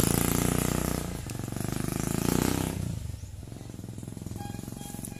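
A small engine running with a rapid pulsing beat, loud at first, then dropping to a much quieter level about three seconds in.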